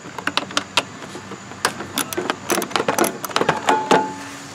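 Ratchet wrench clicking in short quick runs, with metallic clinks, as 10 mm bolts are worked loose.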